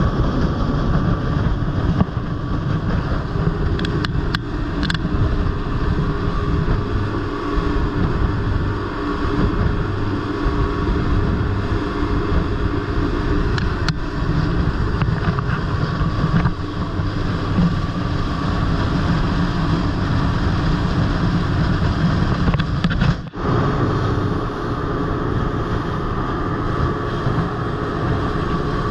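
Motorboat engine running steadily at cruising speed while the boat is underway.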